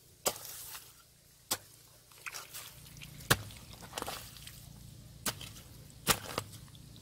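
A metal hoe chopping into damp, root-filled soil: about six sharp strikes at uneven intervals, with smaller knocks between them.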